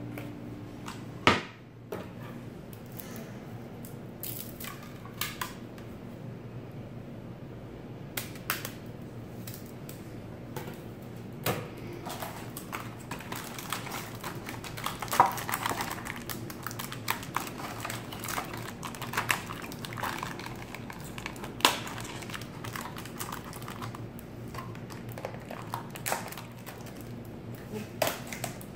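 Unboxing packaging being handled: a sharp knock about a second in, then scattered clicks and the crinkling of a clear plastic bag.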